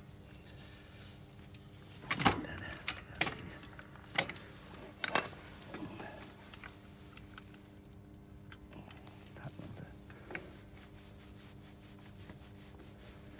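Metal tools clinking and tapping against bolts and the steel frame while bolts are fastened to a forklift transmission: a few sharp clinks in quick succession a couple of seconds in, and two more near the end, over a steady low hum.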